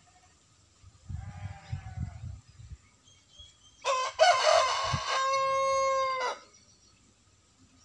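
A rooster crowing once, starting about four seconds in: a rough, ragged opening that settles into a long held note before cutting off. Faint low thumps come earlier.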